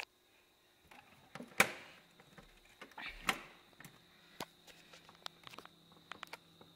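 Scattered clicks and knocks, with two louder knocks about one and a half and three seconds in. A faint steady high tone comes in a little after the second knock, and a faint low hum joins it shortly after.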